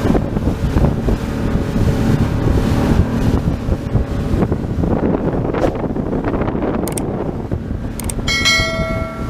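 Wind buffeting the microphone on a boat at sea, with a few clicks and a short ringing tone near the end.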